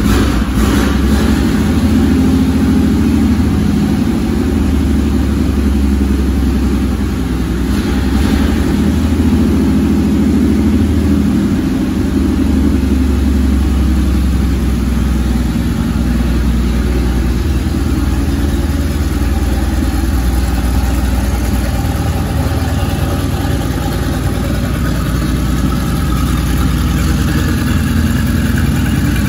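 Pierce-Arrow V12 flathead engine idling steadily.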